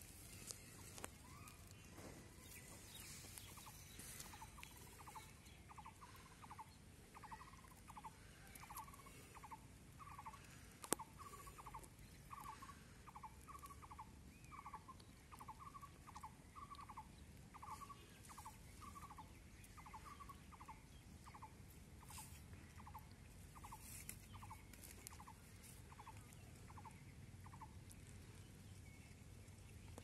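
A faint animal call repeated steadily about twice a second, each a short falling note, keeping up for most of the stretch before stopping near the end. A single sharp click stands out a little before the middle.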